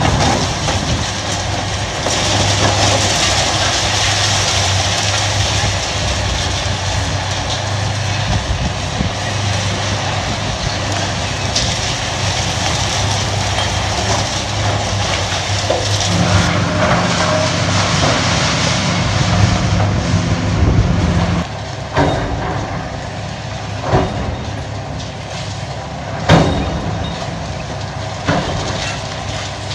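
Diesel engines of hydraulic excavators running under load while they tear into a concrete building, with steady crunching and clattering of breaking concrete and debris. In the last third the engine sound drops and several separate loud crashes of falling rubble stand out, the loudest near the end.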